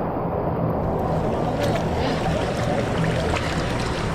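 Rushing, splashing water heard close to the camera, with a steady low rumble and scattered sharp splash ticks from about a second in.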